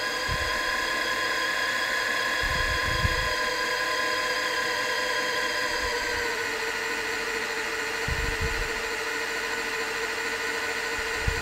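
Peristaltic oil pump driven by a geared 12-volt motor running: a steady, high-pitched gear whine that cuts off suddenly at the end. The noise comes from the pump's gearbox, which the owner says sounded awful, as if it was about to seize up.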